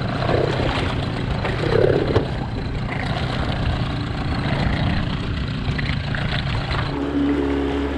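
Mercury 25 hp tiller outboard motor idling in the water with a low rumble. About seven seconds in the sound switches to a steadier engine note with a clear hum.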